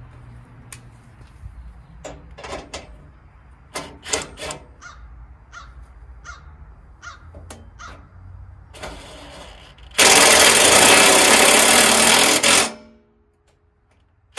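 Scattered clicks and knocks of parts and tools being handled, then a power drill runs in one loud burst of about two and a half seconds, opening up a hole that is too small for the mounting bolt.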